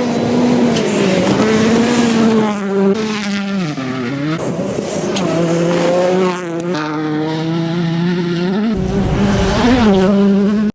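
Hyundai i20 Coupe WRC rally car's turbocharged four-cylinder engine at high revs under load. Its note swoops down and back up about three and a half seconds in and again near six and a half seconds, then holds lower before climbing again near the end.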